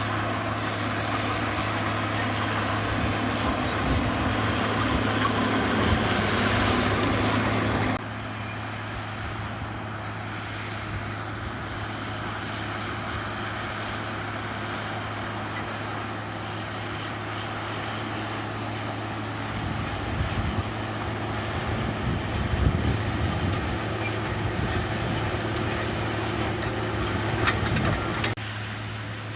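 Diesel engine of heavy earthmoving machinery running with a steady low drone. It is louder and harsher for the first eight seconds, then drops suddenly to a quieter run. Low rumbles and knocks come in the last third.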